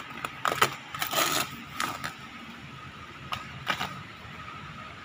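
Plastic bubble wrap rustling and crinkling as it is pulled off a packed table, in several short bursts, the longest about a second in.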